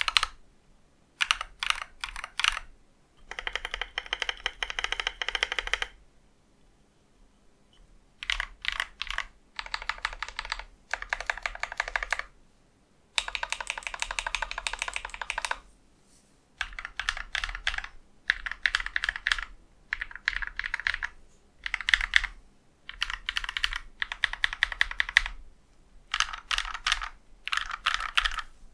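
Mechanical keyboard typing: an Akko 3098 with lubed Akko CS Blue switches, clipped and lubed stock stabilisers and an aluminium plate, keys clacking in rapid bursts of one to three seconds with short pauses between, and a longer pause about six seconds in.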